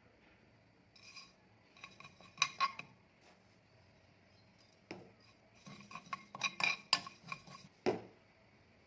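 A metal spoon clinking against a dish in two runs of quick ringing taps, about a second in and again around six seconds in, followed by a single duller knock near the end.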